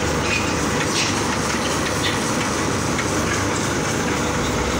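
Concrete batching plant and transit mixer truck running during loading: a steady, loud machinery noise with a low rumble and scattered rattling clicks.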